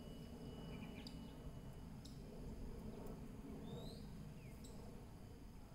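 Quiet outdoor ambience: a steady low rumble with a few faint, short bird chirps, and a thin steady high tone that stops about two seconds in.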